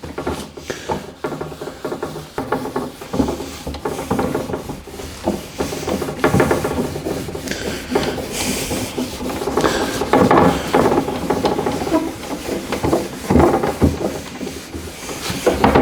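Very fine wire wool wetted with furniture cleaner rubbed over the top of a mahogany table, a scratchy scrubbing in quick, uneven strokes that lifts the dirt off the old finish.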